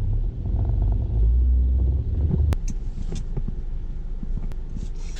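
Low rumble of a car driving, heard from inside the cabin, that drops in level after a sharp click about two and a half seconds in.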